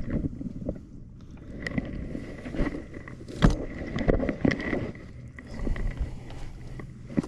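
Scattered knocks and footsteps on a sailboat's deck, with a sharp thud about three and a half seconds in as the wooden deck hatch lid is shut.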